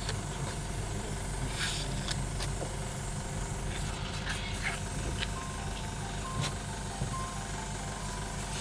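Steady low mechanical hum with a few faint clicks. A simple tune of short, steady high notes begins about five seconds in.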